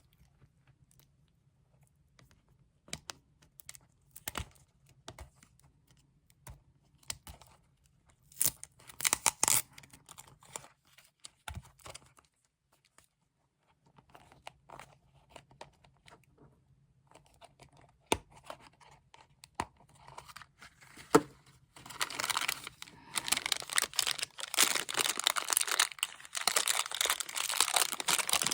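Packaging being handled and torn open: scattered rustles and light clicks, with a louder burst about nine seconds in, turning into dense continuous crinkling and tearing from about twenty-two seconds in.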